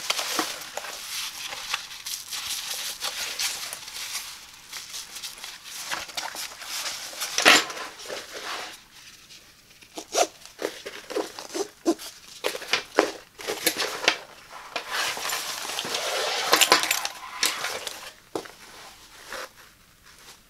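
Hands handling a fabric laptop backpack: the cloth and padded straps rustle and swish, with sharp clicks and taps from the plastic strap adjusters and buckles, a quick run of them about halfway through.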